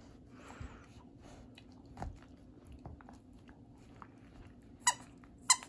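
Dog chewing and gnawing on a bone: a run of small clicks and crunches. Near the end come two short, sharp high-pitched sounds.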